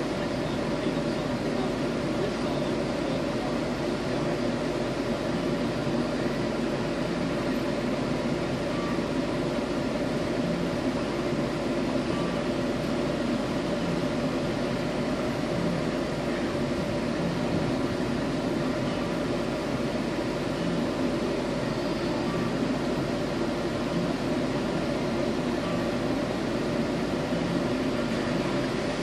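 Truck engine idling steadily, heard from inside the cab, with an even hum that does not change.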